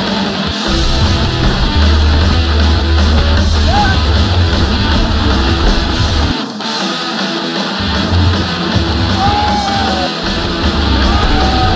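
Rock music with guitar and a heavy bass line, a voice singing at times; the bass drops out briefly about halfway through.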